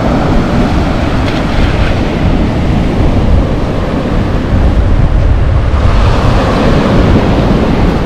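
Wind buffeting the microphone over surf breaking on the shore: a loud, steady rumble with a wash of sea noise.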